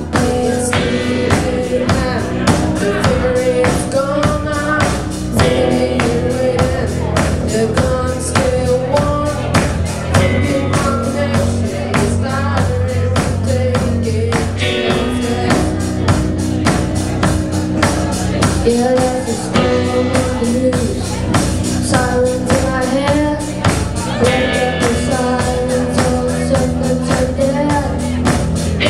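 Live rock band playing: electric guitars, bass guitar and drum kit keeping a steady beat, with a sung lead vocal over them.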